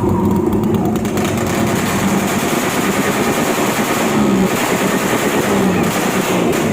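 Honda TMX motorcycle engine revved through a loud aftermarket exhaust, with a rapid pulsing exhaust note; the pitch falls back as the revs drop about four and six seconds in.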